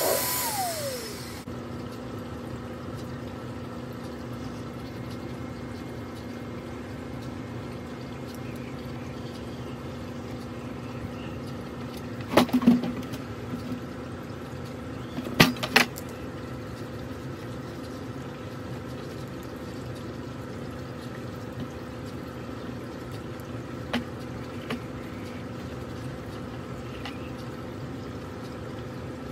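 A motor on the hose line switches off about a second in, its whine falling in pitch as it spins down. Then a steady background hum carries on, with a few short knocks from handling the bucket.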